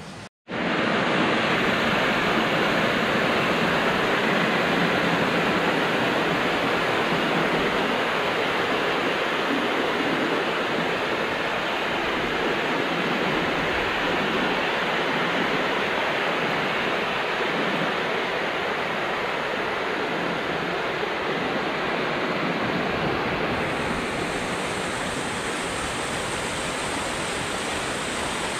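Mountain stream rushing and splashing over granite cascades into rock pools, a steady, loud wash of water. It starts abruptly after a short gap, and a brighter hiss joins near the end.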